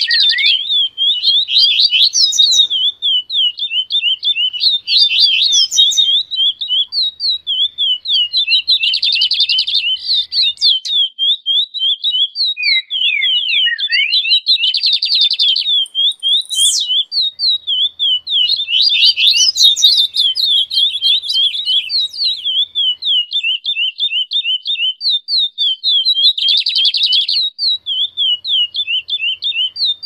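A chorus of songbirds chirping rapidly and without pause, a stream of short high chirps broken now and then by buzzy trills: a 'baderna' mix of bird song meant to stir caged birds into singing.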